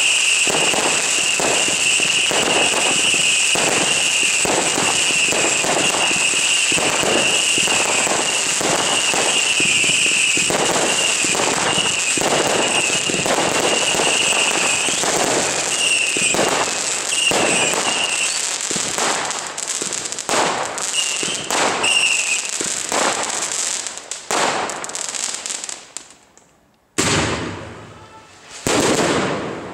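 Consumer category F2 firework cakes firing a rapid, continuous stream of shots and crackling. The firing thins out after about twenty seconds, and after a brief lull two last loud volleys go off near the end.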